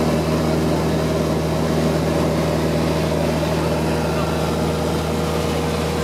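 Steady drone of a single-engine light aircraft's engine and propeller, heard inside the cabin in flight.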